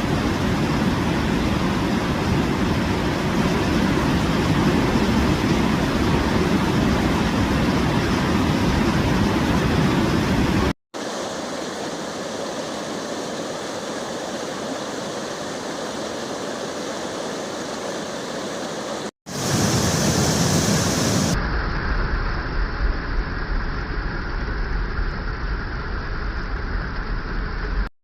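Steady rush of falling water, in several short clips cut one after another. The first clip is loudest and heaviest in the low range; the later ones are thinner.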